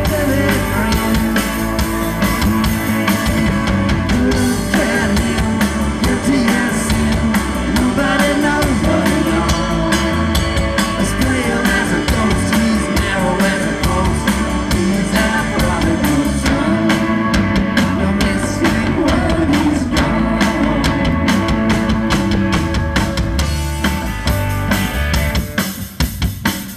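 Rock band playing live on drum kit and guitars, loud and steady, the playing dropping away just before the end.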